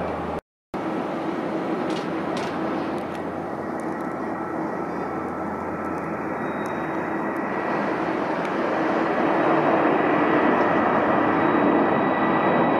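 Jet engines of an Airbus A330 airliner at takeoff thrust: a dense rushing noise with a faint steady whine in it, growing louder over the last few seconds as the jet lifts off. The sound drops out for a moment about half a second in.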